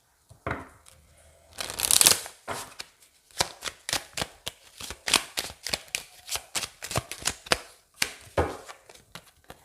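A deck of tarot cards being shuffled by hand. A brief rush of cards comes about two seconds in, then a run of quick card snaps at about four a second.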